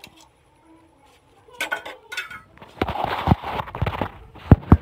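Metal tongs clinking lightly against a plate, then rubbing and a few sharp knocks, loudest near the end, as the phone that is recording is grabbed and moved.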